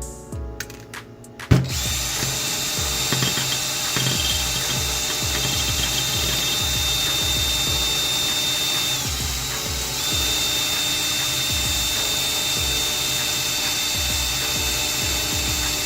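Electric drill motor running steadily at high speed with a high whine. It starts with a sharp loud hit about a second and a half in and lets off briefly around nine to ten seconds in.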